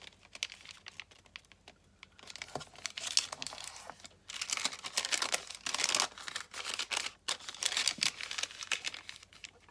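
A sheet of thin patterned paper being folded and creased flat by hand, crinkling and rustling in several bursts with quieter pauses between them.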